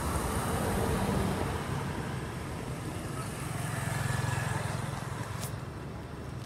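Motor vehicle engine running close by, a low rumble that swells about a second in and again around four seconds, with a sharp click near the end.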